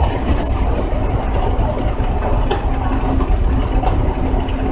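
Steady low rumble with a few brief rustles: handling noise from a camera held against fabric.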